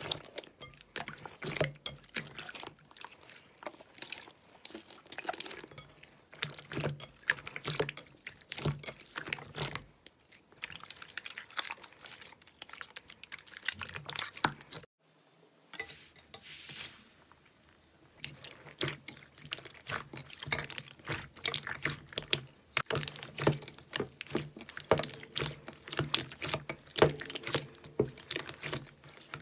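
Slime being squeezed, stretched and poked by hand, giving a dense run of small wet pops and crackles, with a brief pause about halfway.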